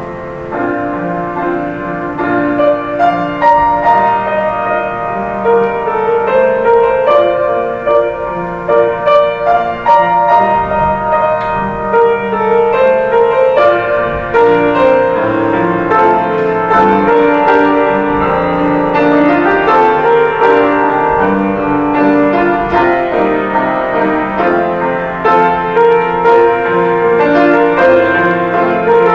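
Solo grand piano playing a continuous piece, notes held and overlapping.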